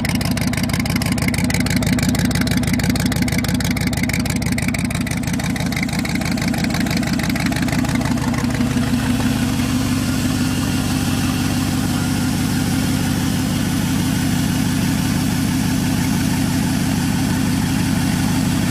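Pontiac Firebird's swapped 5.3 L LS V8 idling steadily, shortly after a cold start.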